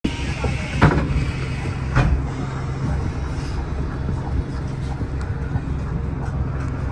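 Bus engine running, a steady low hum heard inside the cabin, with two sharp knocks about one and two seconds in.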